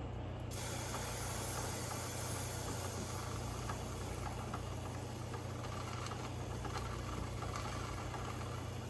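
Aerosol spray can hissing in one long continuous spray that starts abruptly about half a second in, over a steady low hum.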